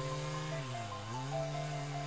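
Background music of sustained tones, with the lower notes dipping in pitch and rising back about a second in.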